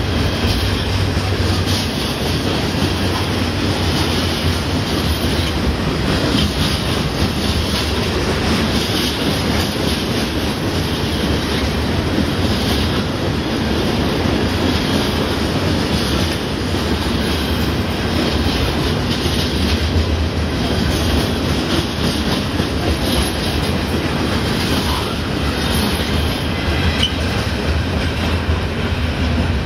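Norfolk Southern stone train's freight cars rolling past at a steady pace: a continuous rumble with the clickety-clack of wheels on the rails.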